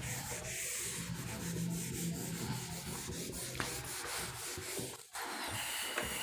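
Continuous scratchy rubbing over a low steady hum, breaking off briefly about five seconds in.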